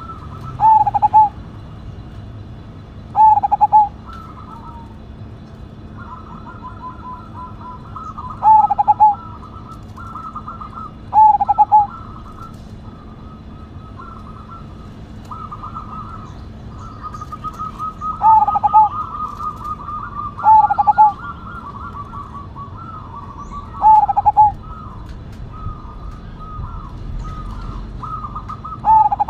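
Zebra dove (perkutut) cooing: loud short coos repeated every few seconds, with softer rapid stuttering notes between them through the middle.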